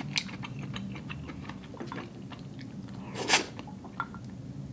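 Close-up chewing and slurping of udon noodles in hot pot broth: soft wet mouth clicks, with one louder slurp of noodles about three seconds in.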